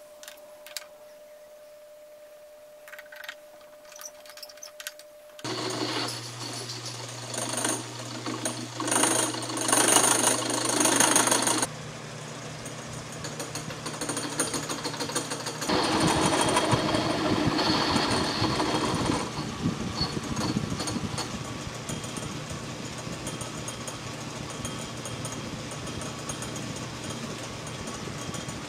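A few light clicks of the part being handled. Then, about five seconds in, a homemade Gingery metal lathe starts up: a steady motor hum under the clatter of its belt drive. A tool turns a cast aluminum boss on an arbor, and the cutting sound changes a few times.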